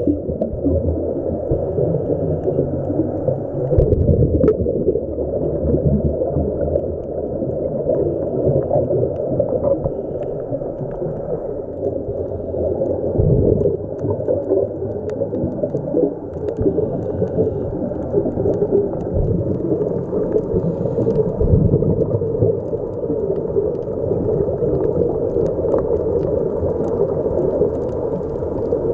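Muffled underwater noise heard through a camera housing on a scuba dive, with a diver's exhaled bubbles from the regulator gurgling up in surges about every nine seconds.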